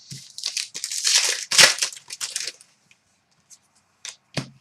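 Trading cards and their packaging being handled at close range: rustling and crinkling for about two and a half seconds, then a few light clicks.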